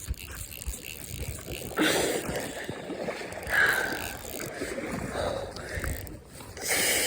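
Fly reel's click-and-pawl drag ratcheting in uneven spells as line goes in and out while a big trout is played toward the net.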